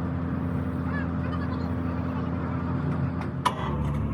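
An engine running steadily with a low, even hum that shifts slightly near the end, and two sharp knocks in the last second.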